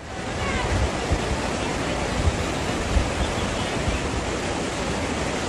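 Steady, loud rushing roar of natural noise, with a few short low thumps.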